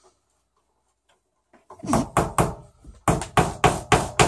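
Hammer driving nails into a flat-pack wardrobe. It starts about two seconds in as a few strikes, then settles into a steady run of about four sharp blows a second.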